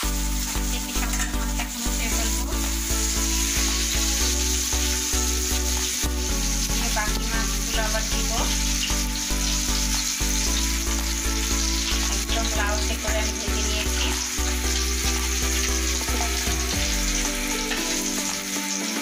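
Rohu fish pieces frying in hot oil in a karahi, sizzling steadily. Instrumental background music with a low bass plays over the frying, fading out near the end.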